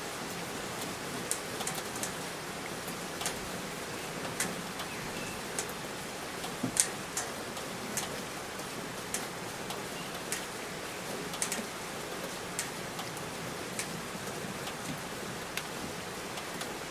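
Steady rain falling, a soft even hiss. Irregular sharp ticks of single drops land close by, about one or two a second.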